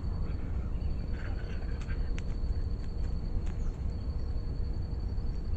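Camera-trap field ambience: a steady low rumble with a continuous high, thin insect drone, a few faint ticks, and a faint brief sound about a second in.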